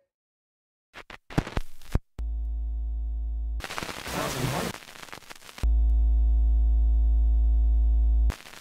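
A steady electrical hum with a buzzy row of overtones, in two stretches: a quieter one after a few clicks, and a louder one that cuts off suddenly near the end. Between them is a burst of noise.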